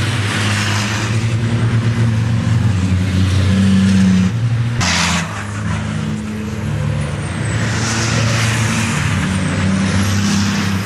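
Racing trucks' turbo-diesel engines running hard as the trucks pass on the circuit. The sound changes abruptly about five seconds in, with a short hiss.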